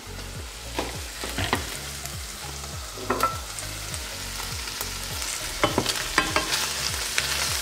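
Wooden spatula stirring chicken, bacon and mushrooms frying in a stainless steel pan: a steady light sizzle with scrapes and knocks of the spatula against the pan, which come more often in the last couple of seconds.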